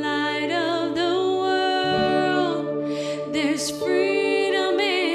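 Live worship music: a woman's voice singing with vibrato over guitars and a steady ambient pad from the Aerospace Audio Atmosphere pedal. The pad's low notes move to a new chord about two seconds in.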